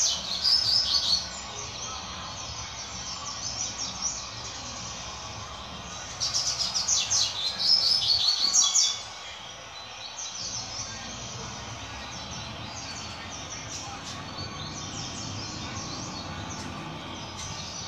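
Double-collared seedeater (coleiro) singing in two bursts of quick, high, down-slurred notes: one ends about a second in, the other runs from about six to nine seconds in, with softer chirps between them. It is a young male still polishing its song.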